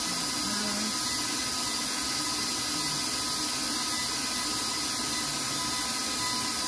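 KitchenAid stand mixer motor running at a steady speed with a constant whine and hiss, cutting cold butter into the flour mixture until it forms pea-sized crumbs.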